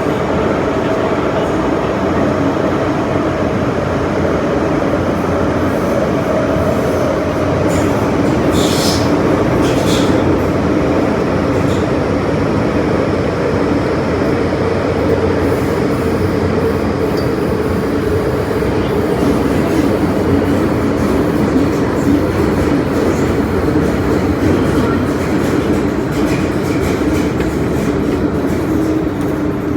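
Metro-Cammell M-Train electric multiple unit running on the MTR Island Line, a steady loud rumble of wheels and motors. The motor tone slowly falls in pitch as the train slows towards its next station, with a few brief clicks about a third of the way in.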